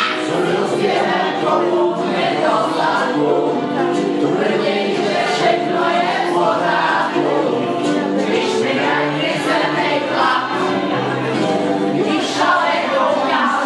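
A group of women singing a song together, many voices at once.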